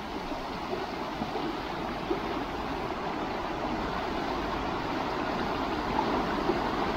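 A river running: a steady rush of flowing water, growing slightly louder toward the end.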